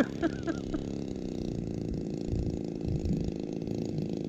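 Stinger 26cc gas engine of a model Beechcraft Staggerwing biplane idling steadily on the ground, a low drone whose pitch drifts slightly.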